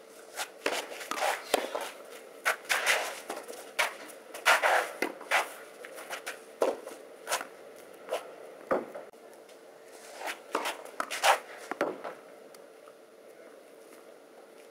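Tennis rally on a clay court: a string of sharp knocks from rackets striking the ball and the ball bouncing on clay, with scuffing footsteps. The hits stop about twelve seconds in.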